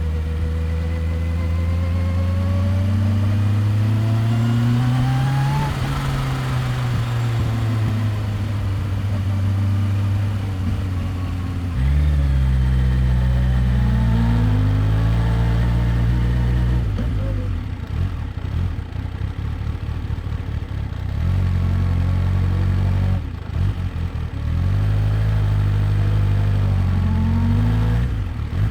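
Kawasaki Ninja H2's supercharged inline-four revving up over the first six seconds, then easing off as the pitch falls. It picks up sharply about twelve seconds in and falls away again, drops to a lower, rougher sound from about seventeen to twenty-one seconds, then holds steady and rises briefly near the end.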